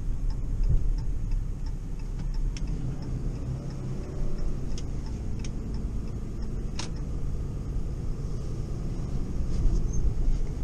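Dodge Ram 5500 wrecker heard from inside the cab while towing a heavy motorhome van: a steady low engine and road rumble, with a turn signal ticking about twice a second.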